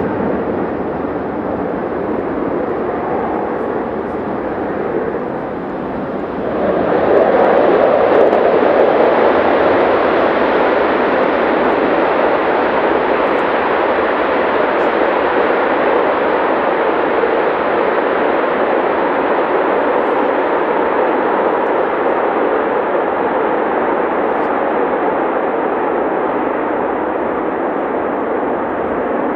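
Two F-16 fighter jets' engines running on the runway. About six and a half seconds in, the jet noise jumps sharply louder as they go to full afterburner for the takeoff roll, then holds a loud, steady rumble that eases slightly as they move away.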